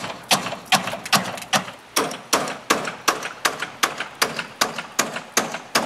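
Hammer blows at the gutter along a roof eave, a steady run of sharp strikes a little under three a second.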